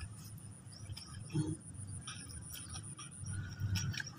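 Faint outdoor ambience with low rumble from wind or handling on the microphone, a few light clicks and short faint chirps. A thin steady high whine stops about three seconds in.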